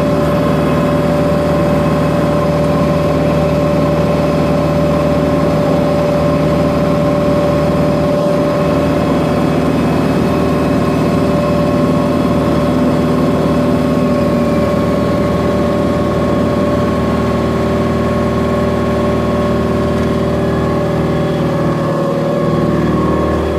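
Volvo MW500 cold planer's diesel engine idling steadily, with a steady whine over its running.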